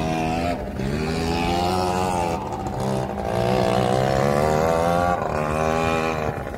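A motor vehicle's engine running, its pitch rising and falling in long sweeps with a few short breaks.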